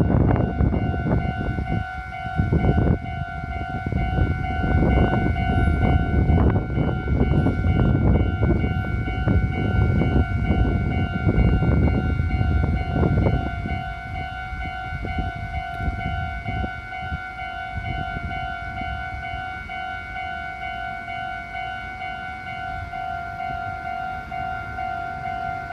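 Japanese level-crossing alarm ringing steadily with a rapid pulsing electronic bell tone, while a train passes over the crossing with loud wheel rumble and clacking over rail joints. The train noise dies down about halfway through, and the alarm keeps ringing.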